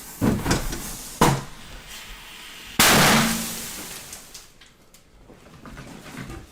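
Fireworks going off indoors: two sharp bangs in the first second or so, then a louder hissing burst about three seconds in that fades away.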